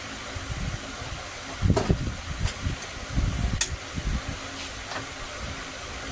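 A steady fan-like whir, with sharp clicks about two and three and a half seconds in and irregular low knocks of handling.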